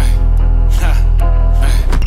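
Intro music: a deep, steady bass with a hit about every 0.8 seconds.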